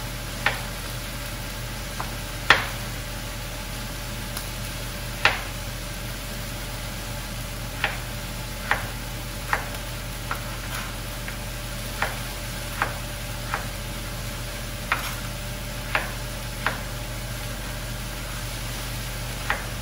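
Large kitchen knife cutting a sweet potato into fries on a plastic cutting board: about fifteen sharp knocks of the blade on the board, spaced a second or so apart, over a faint steady sizzle of vegetables sautéing in a pan.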